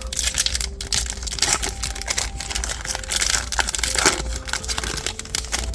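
Foil trading-card pack wrapper being crinkled and torn open, a dense crackling rustle that goes on for several seconds and stops near the end.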